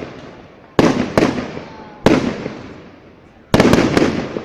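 Aerial fireworks bursting: a string of sharp bangs, two about a second in, one near two seconds, then a quick cluster of three near the end, each trailing off in a fading echo.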